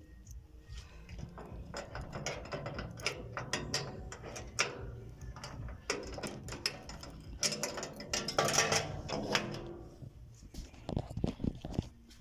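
Rattling and clicking of small hard objects being handled: a busy run of quick clicks and clatters, loudest about eight to nine seconds in.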